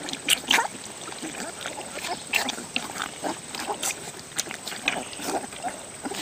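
A litter of puppies lapping and slurping milk from shallow pans: a busy, irregular patter of wet lapping clicks.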